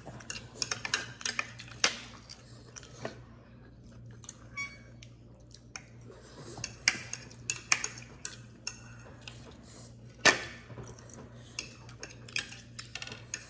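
Forks and spoons clinking and scraping against plates and bowls during a meal: irregular sharp clicks, the loudest about ten seconds in.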